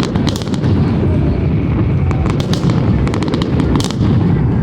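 Fireworks going off in quick succession: a continuous rumble of overlapping booms, with many sharp cracks and pops throughout.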